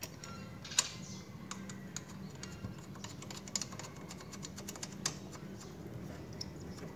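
Small irregular clicks and ticks of plastic wiring connectors and parts being handled by hand while a motorcycle's charging regulator is fitted, over a faint steady low hum.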